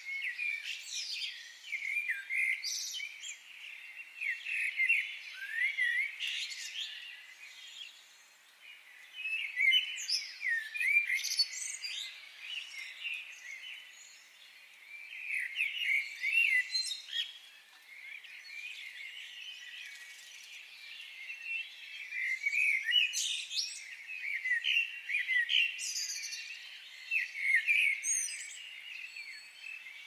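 Many small songbirds chirping and singing in quick overlapping calls, coming in waves that swell and fade every few seconds.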